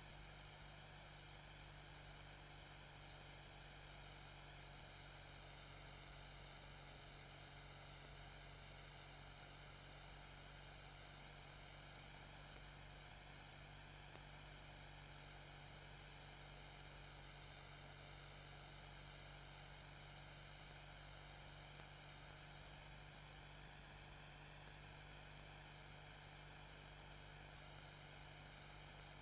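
Steady electrical hiss and hum with a constant high-pitched whine, unchanging throughout, with no distinct calls or clicks.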